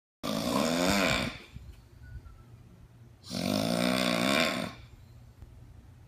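A person snoring: two drawn-out snores about three seconds apart, each with a wavering pitch.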